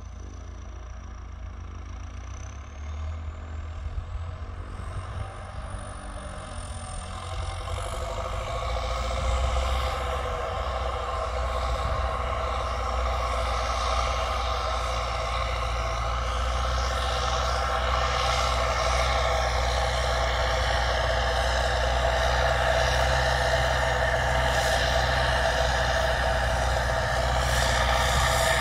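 Belarus MTZ 1025.4 tractor's turbodiesel engine running through a straight-pipe exhaust while ploughing, getting louder over the first several seconds as it works and then holding steady. A thin high whistle climbs in pitch early on.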